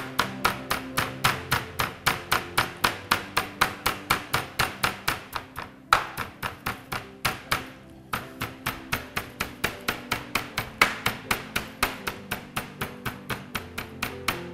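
Chicken breast in plastic film being pounded flat with a wooden rolling pin on a cutting board: quick, even thuds about three a second, with a pause of about two seconds midway. Steady background music lies underneath.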